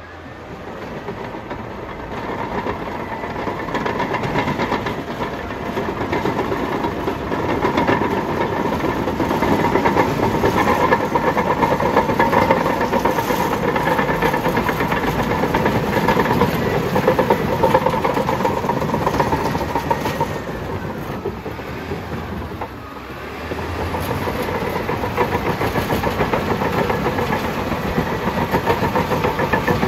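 Diesel bulldozer running close by, engine working with its crawler tracks clattering. It grows louder over the first several seconds, eases briefly a little past halfway, then picks up again.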